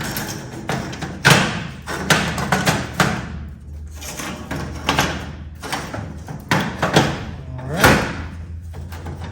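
Irregular thumps and clanks of metal parts being handled and set down, some with a short ringing tail, over a steady low hum.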